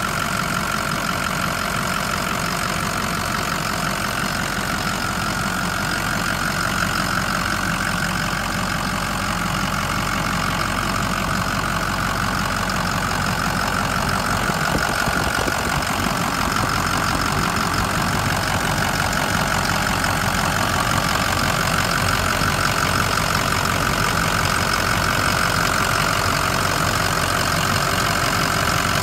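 Ford 6.0 L Power Stroke turbo-diesel V8 idling steadily under an open hood, with a steady high whine running through it.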